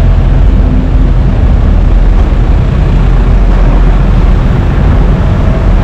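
Car ferry's engines running with a loud, steady low rumble.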